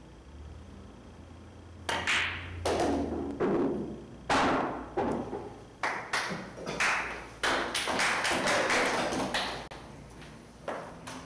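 Pool balls on a billiard table: after about two seconds of quiet, a shot sets off a run of sharp clacks and knocks, each ringing briefly, as the balls collide, hit the cushions and drop.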